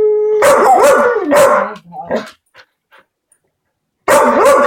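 A dog vocalizing on cue, 'speaking': a held 'woo' at one steady pitch, then a run of loud yowling barks that bend up and down in pitch. After a pause of about two seconds, another loud yowling bark comes near the end.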